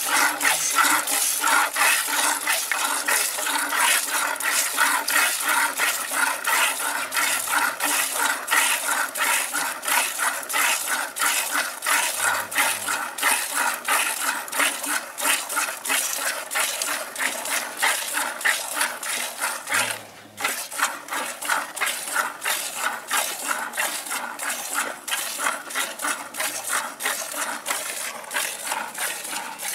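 Hand-milking a cow into a steel pail: streams of milk squirted from the teats hiss into the pail in an even rhythm, about two or three squirts a second, with a brief break about twenty seconds in.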